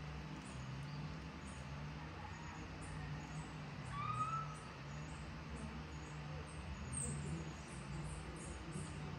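Outdoor ambience: a steady low hum under a soft hiss, with a single short rising bird chirp about four seconds in.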